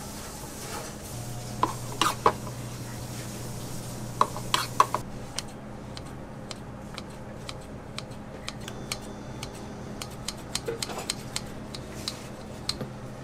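Metal icing spatula and utensils clinking and scraping as cream cheese frosting is scooped and spread on a layer cake. Several sharp knocks come in the first few seconds, then a run of lighter, scattered clicks.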